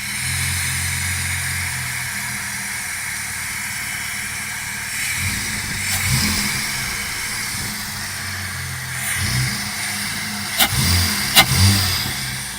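Holden VT Commodore running through a newly fitted exhaust: a steady idle, with a few short throttle blips in the second half, the last ones near the end the loudest and bringing a couple of sharp cracks.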